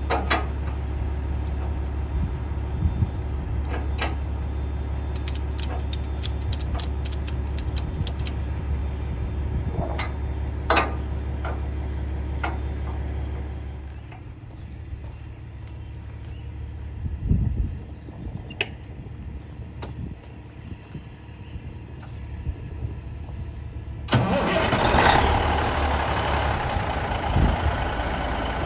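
Semi truck's diesel engine idling steadily, with scattered clicks and knocks over it. About 14 s in the engine hum drops away to a quieter stretch with a few thumps, and about 24 s in a louder rushing noise comes in.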